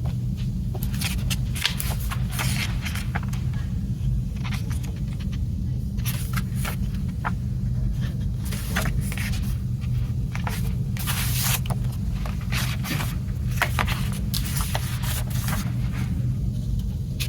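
Irregular rustling, scraping and light clicks of a CD case and its packaging being handled over a steady low hum.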